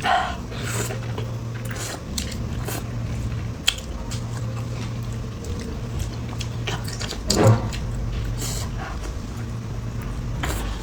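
A person eating close to the microphone: chewing and biting with scattered short clicks, over a steady low hum. A louder eating sound comes about seven and a half seconds in.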